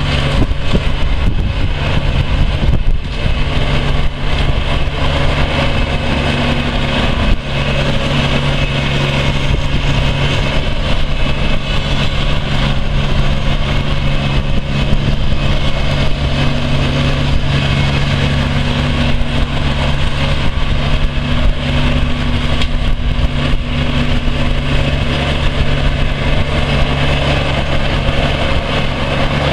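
Kubota 1.5-litre three-cylinder diesel engine of a Hustler 3400 front-deck mower, running at a steady speed as the mower drives across the lawn.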